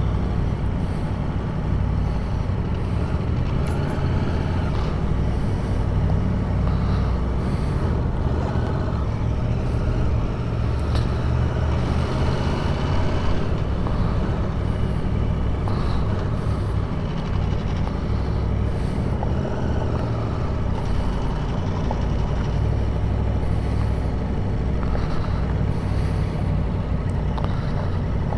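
Aprilia Tuono V4 1100's V4 engine running steadily at low revs while the motorcycle rolls slowly in first gear.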